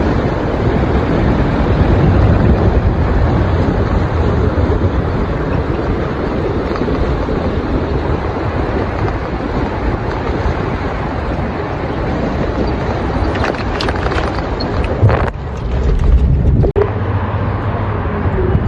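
Wind buffeting the microphone over steady vehicle and road noise from a moving ride, with an abrupt change in the sound about fifteen seconds in.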